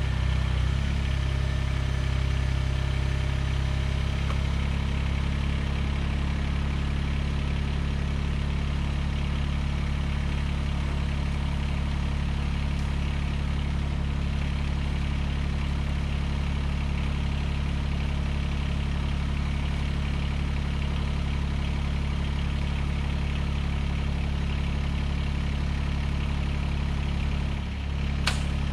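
Mahindra eMax 20S compact tractor's three-cylinder diesel engine running steadily. A single sharp click comes near the end.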